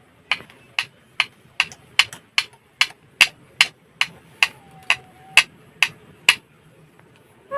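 A series of sharp clicks, about two to three a second, stopping near the end.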